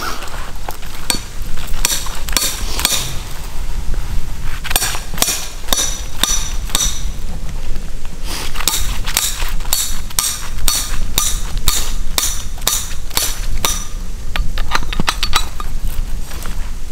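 Hammer blows on a metal snare stake, driving it into the ground: a long series of sharp, clinking metal-on-metal strikes in runs of about two or three a second, with short pauses between runs.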